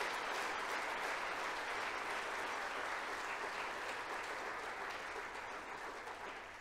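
A congregation applauding, steady clapping that slowly dies away toward the end.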